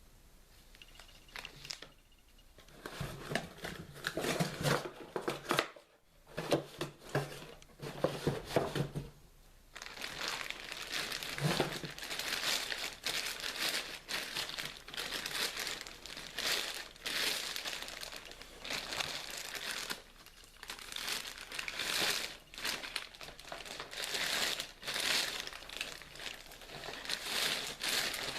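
Irregular crinkling and crumpling, as of something being handled, starting faintly about a second in and growing louder from about three seconds, with brief pauses.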